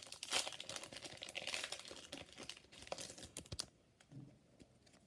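Trading-card booster pack wrapper crinkling and crackling as it is torn open, a dense run of crackles that stops about three and a half seconds in.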